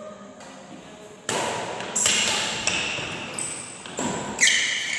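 Badminton rackets striking a shuttlecock in a fast rally, about six sharp pinging hits roughly two-thirds of a second apart. They begin a little over a second in, and each hit echoes briefly in the hall.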